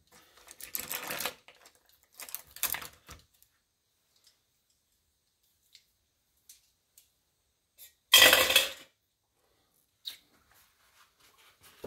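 Small objects being handled and set down on a work surface: a few short rustles and clatters, with one loud clatter about eight seconds in and faint ticks between.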